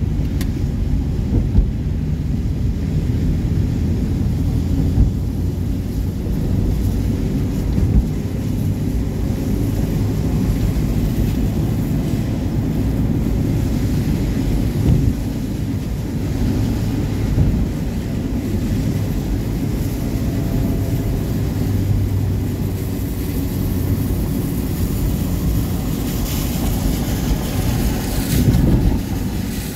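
Road noise inside a moving car on a rain-soaked road: a steady low engine and road drone with tyre hiss on the wet surface, a few brief knocks, and a louder hiss for a moment near the end.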